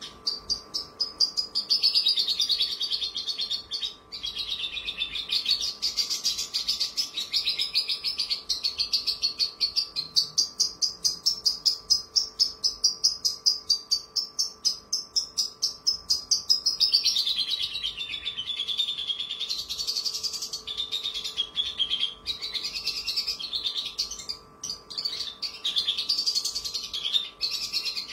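Javan bush lark (branjangan) singing a long, unbroken song of fast, repeated high notes that rise and fall in pitch.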